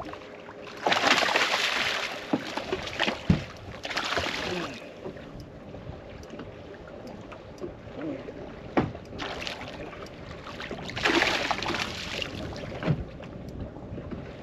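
A hooked smallmouth bass splashing at the water's surface in several bursts of about a second each as it is fought on the line.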